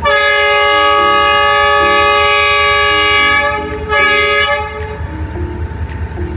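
Train horn sounding: one long blast of about three and a half seconds, then a short second blast, over background music.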